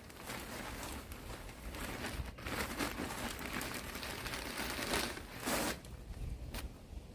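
Plastic bag of potting soil crinkling and rustling as it is handled, in irregular spells, loudest about three and about five and a half seconds in.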